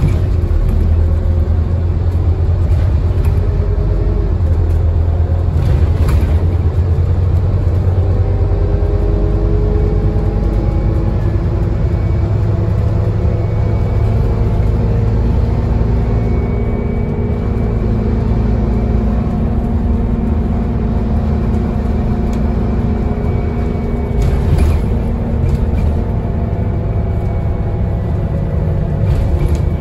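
Scania N230UD double-decker bus with its five-cylinder diesel engine and ZF automatic gearbox, heard from inside on the upper deck while under way. The engine is pulling with a heavy low rumble, its pitch slowly rising and falling as the bus gains speed and changes gear. A couple of short knocks come from the body over bumps.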